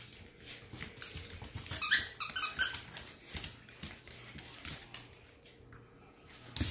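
Small Yorkshire terrier's claws clicking and pattering on a hard wood-look floor as it scrambles after a toy, with a louder flurry of clicks about two seconds in.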